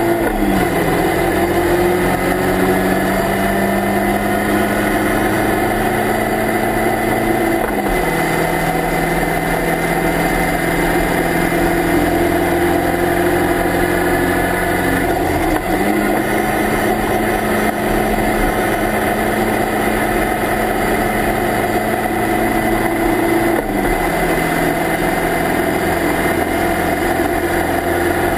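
Engine of a Locost Lotus Seven–style club race car heard from the open cockpit, running hard at full throttle on track. Its note steps down at upshifts, about a second in and again about eight seconds in, then changes again twice more, over steady wind and road noise.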